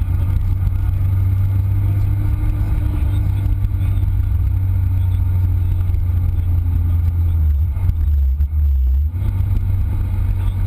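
Onboard sound of a Lotus Exige S at speed on a race circuit: a steady, heavy low rumble of engine and road noise. The sound changes and dips briefly about eight seconds in, then picks back up.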